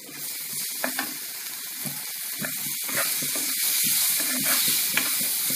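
Chopped tomato sizzling in hot oil and fried onions in a non-stick wok, the hiss swelling over the first few seconds as it fries. A wooden spatula stirs it, with a few light knocks and scrapes against the pan.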